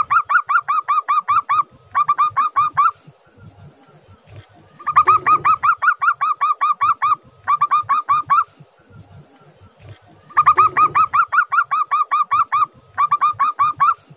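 Zebra dove (perkutut) singing: three bouts of quick staccato cooing notes, about five or six a second, each bout pausing briefly before a shorter final run. The first bout is already going as the sound begins, the second starts about five seconds in, and the third about ten seconds in.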